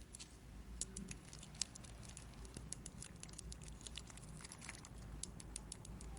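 Faint, irregular light clicks and ticks of small plastic toy pieces and packaging being handled, a few a second.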